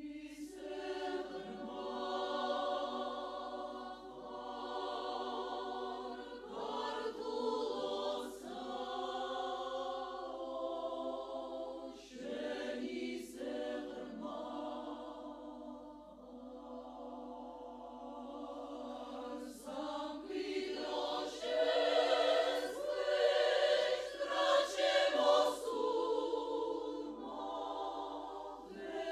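Women's chamber choir singing in held chords, with short breaks between phrases, swelling louder about two-thirds of the way through.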